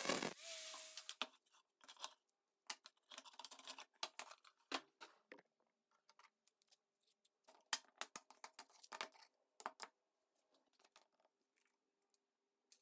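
Angle grinder in a cut-off stand cutting steel pipe, the motor's whine stopping about a second in. Then scattered clinks and rattles of metal scrap pieces being rummaged through in a plastic crate.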